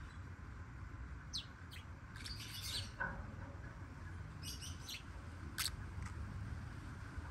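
Black-winged lovebirds (Agapornis taranta) giving short, high chirps in scattered bursts, over a low steady background hum.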